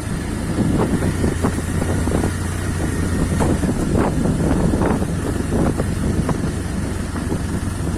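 Motorcycle engine running steadily on a rough dirt track, with wind buffeting the microphone and scattered knocks and rattles from the bumps.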